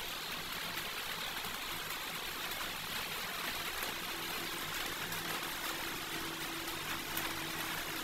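Steady background hiss, with a faint low hum coming in about halfway through.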